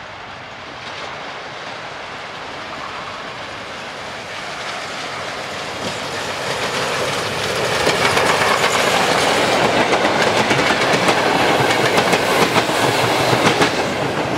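Ol49 steam locomotive and its passenger carriages rolling in and passing close by, the wheels clattering over rail joints and points. The noise grows steadily and is loudest from about eight seconds in, as the train goes past.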